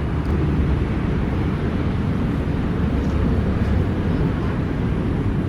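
Steady low outdoor rumble with a fainter hiss above it, unchanging throughout, with no distinct calls or knocks.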